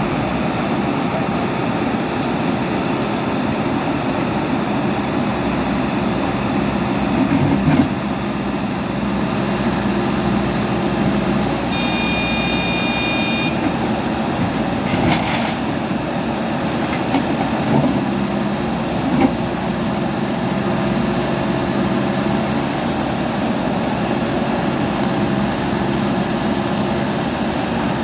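JCB backhoe loader diesel engines running steadily under load, with a few sharp knocks of machinery working against concrete. A brief high-pitched tone sounds about twelve seconds in.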